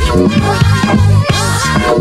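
A DJ mix of dance music played from vinyl on turntables, with a steady beat, heavy bass and a repeating gliding melody.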